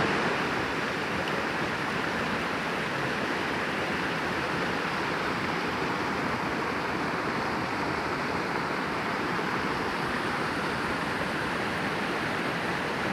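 Waterfall rushing: a steady, even roar of falling water that does not change.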